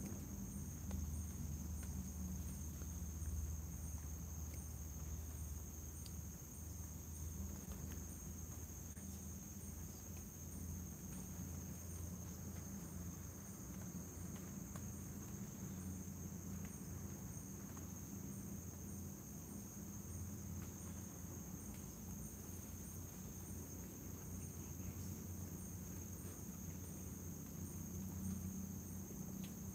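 Night insects such as crickets chirring in a steady, high, unbroken trill, with a fainter chirp repeating evenly above it and a few faint rustles.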